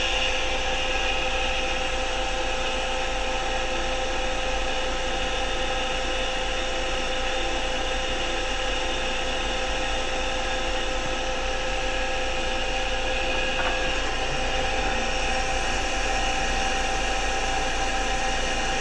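An electric motor running steadily on a variable frequency drive during a load test: a constant whine made of several held tones over a low hum, with no change in speed.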